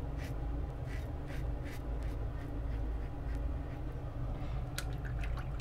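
RazoRock GameChanger .84 safety razor scraping through lathered stubble in a few short, faint strokes, over a steady low hum.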